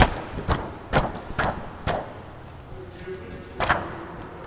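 Footsteps of a person walking on carpet, about two steps a second, pausing for a moment about two seconds in before one more step.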